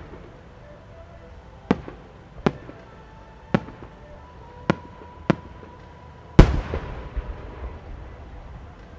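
A 12-inch (10-gō) Japanese aerial firework shell. Five sharp pops come spaced over about four seconds as the small-flower effects burst on its climb. Then, about six seconds in, the main shell bursts with the loudest boom, which rumbles and echoes away.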